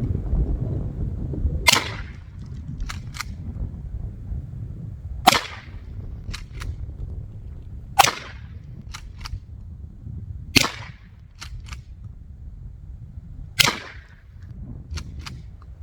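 Mossberg 590A1 pump-action 12-gauge shotgun fired five times, about every two and a half to three seconds. Each shot is followed about a second later by a quick double clack as the pump is racked back and forward to chamber the next shell.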